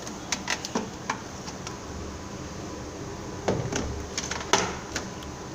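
A series of light clicks and knocks from handling the plastic parts of a semi-automatic washing machine: a few in the first second and a denser cluster about three and a half seconds in, over a steady low background hum.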